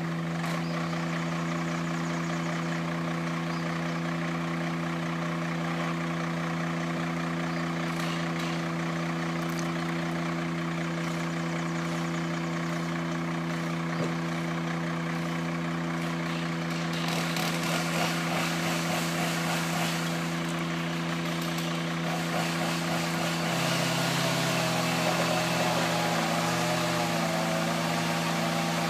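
Crane truck's engine running steadily with a constant drone while it lifts a fallen tree. About two-thirds of the way through a hiss joins in, and near the end a wavering whine is added over the drone.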